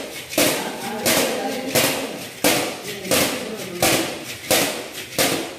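Fried rice being tossed in a steel wok over a gas burner: each flip gives a sudden burst of sizzle and scrape that fades away, about eight times in a steady rhythm, a little more than one a second.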